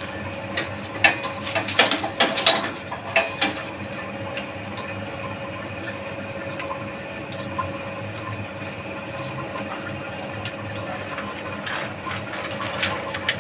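Stainless-steel mixer-grinder jar knocked and tapped as powdered sugar is emptied out of it, a cluster of sharp metal knocks in the first few seconds and a few lighter clinks near the end. A steady mechanical hum runs underneath.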